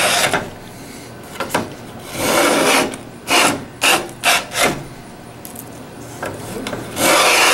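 Japanese wooden plow plane (kikai shakuri kanna) scraping along a board as it cuts a groove and takes thick shavings. There is a long stroke at the start, another about two seconds in, a few short scrapes around four seconds, and another stroke near the end.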